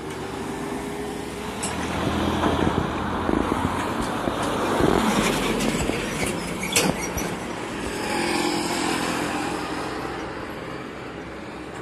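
Road traffic: motor vehicles driving past close by, the engine and tyre noise building to its loudest about five seconds in and then easing off. A single sharp click comes near seven seconds.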